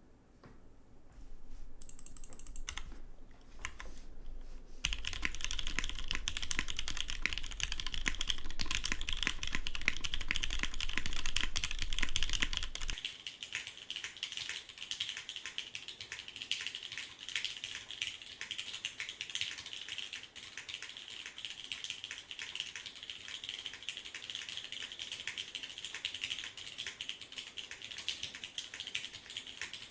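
Typing on a Matrix Labs 8XV 2.0 top-mount aluminium-plate TKL mechanical keyboard with vintage 1986 Wyse Cherry MX Black linear switches that are lubed and filmed, under GMK keycaps. A few scattered keystrokes turn into fast, continuous typing about five seconds in, which becomes somewhat lighter after about thirteen seconds.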